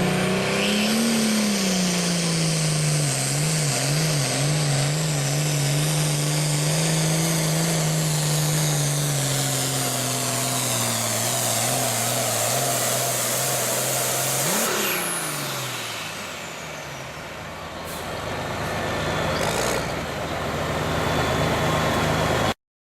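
Turbocharged diesel engine of a Super Farm class pulling tractor running hard under load, its note wavering, with a high whine slowly falling in pitch. About 15 seconds in the throttle comes off and the engine pitch drops away, then the sound rises again before cutting off abruptly.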